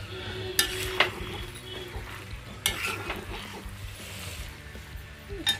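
Steel ladle stirring chicken manchurian in a black iron pan, with three sharp scrapes of metal against the pan in the first three seconds over a low frying hiss.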